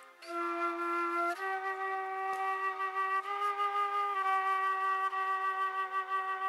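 Flute playing a slow melody of long held notes, about five in all, the last held for more than two seconds, after a short breath just before the first note.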